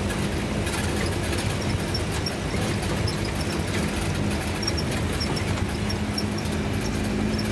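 Land Rover's engine running steadily at low speed, heard from inside the cab as it drives along a rough dirt track.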